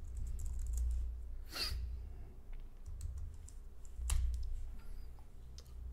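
A few scattered keystrokes on a computer keyboard typing a command, over a low background hum, with a short hiss about a second and a half in.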